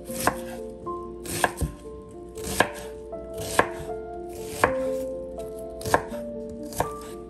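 Chef's knife dicing an onion on a bamboo cutting board: sharp chops of the blade onto the wood, about one a second.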